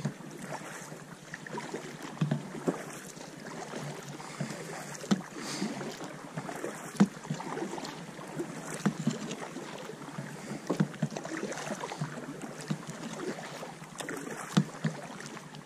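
Kayak being paddled: the paddle blades splash in and out of the water with irregular sharp knocks, and water sloshes along the hull.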